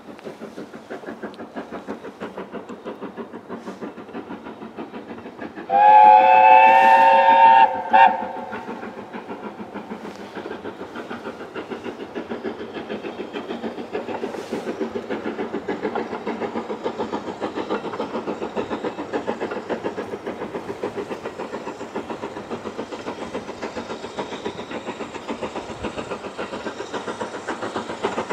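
Steam locomotive approaching under power, its exhaust beating in a fast steady rhythm that slowly grows louder. About six seconds in it sounds its whistle in one long blast of about two seconds, then gives a short second toot.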